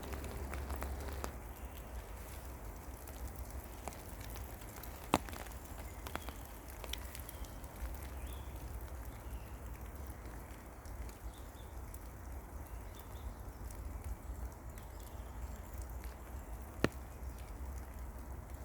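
Rain falling in a forest: a steady soft hiss of drops with a few sharp single drips landing close by, one about five seconds in and another near the end.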